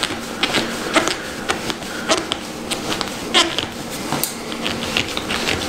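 Motorcycle fork top cap being spun by hand onto the fork tube's fine threads: irregular light metallic clicks and ticks, a few with a brief ring, as the metal parts turn and knock.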